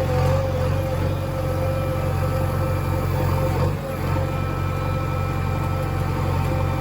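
A heavy engine running steadily, dipping briefly about four seconds in.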